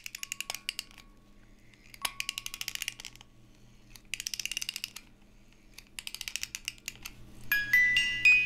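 A ratchet clicking rapidly in four short runs about two seconds apart, then bell-like music notes start near the end.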